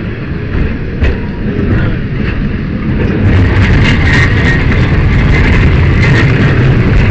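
Lisbon Tram 28 streetcar running along its rails: a steady low rumble that grows louder about three seconds in.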